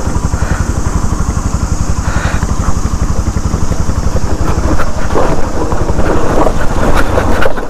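Motorcycle engine running with an even, rapid low beat as the bike rolls over a rough rocky trail, with scattered knocks and rattles from about five seconds in.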